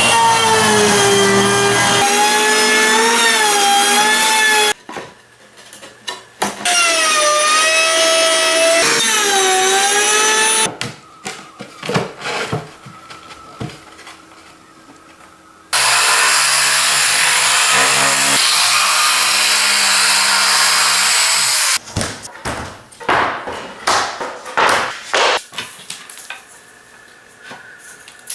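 Power saw cutting plywood twice, each cut a loud whine that wavers in pitch as the blade works through the sheet. After that comes a loud, even rushing noise from another power tool for about six seconds, then scattered knocks and clatter of wood being handled.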